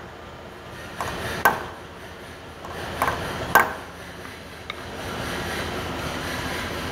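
Hammer striking a steel centre punch held against a diesel engine block, tapping alignment marks: four sharp metallic taps in two pairs about two seconds apart, then a light tick.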